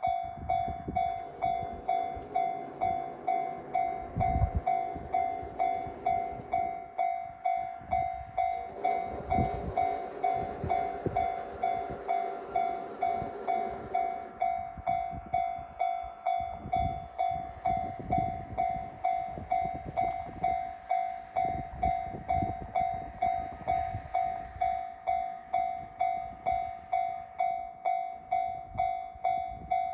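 A Japanese level-crossing warning bell rings steadily, an even, quickly repeating electronic ding. Under it, the diesel engines of KiHa 183-series railcars run at the station, louder in the first half, with a couple of heavier low thumps.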